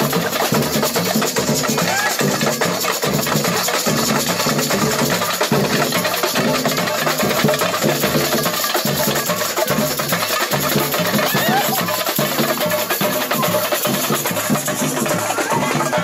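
Samba bateria playing a steady, driving groove: regular deep surdo bass-drum beats under a dense stream of sharp snare and hand-percussion strokes.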